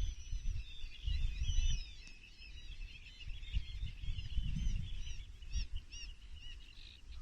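Small songbirds chirping and singing together, a busy tangle of high chirps and trills with a run of short repeated notes in the second half. A low rumble swells and fades underneath.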